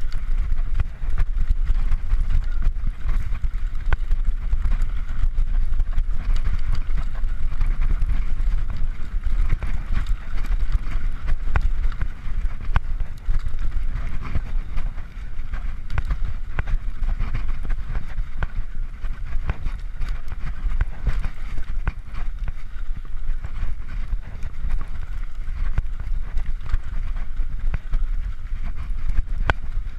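Mountain bike riding fast down a rough dirt singletrack: wind buffeting the microphone with a steady low rumble, and a constant run of sharp clicks and rattles as the bike jolts over the bumps.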